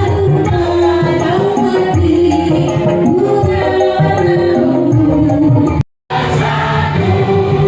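Loud music with singing over a steady beat, cutting out completely for a split second about six seconds in before resuming.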